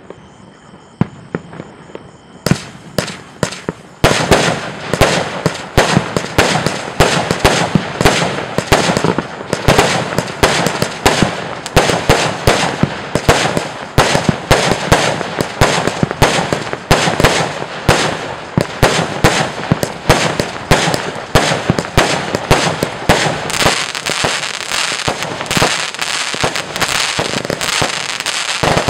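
Rubro 'Event' compound firework cake firing. It starts faintly, the first shots come about two and a half seconds in, and from about four seconds a rapid, unbroken string of launches and bursts follows, several a second.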